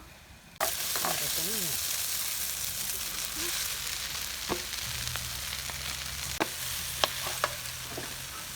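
Food dropped into hot oil in a pan starts sizzling loudly about half a second in and keeps frying steadily, with a few sharp clinks of a utensil against the pan in the second half.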